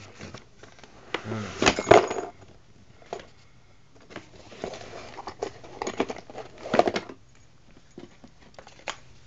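A deadbolt's retail packaging being pulled and torn open, with rustling and the lock's metal parts and keys clinking, in irregular bursts that are loudest about two seconds in and again around six to seven seconds.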